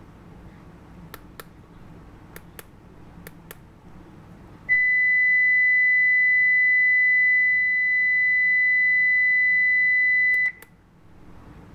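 Satlink 6980 HD satellite meter: its keypad buttons click in quick pairs three times, then its buzzer sounds one steady high beep for about six seconds while it reads a received satellite signal, cut off abruptly by two more button clicks.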